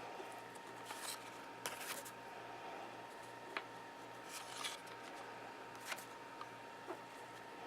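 Magic: The Gathering trading cards being handled and slid past one another: several short, scattered swishes and a few light clicks, over a faint steady hum.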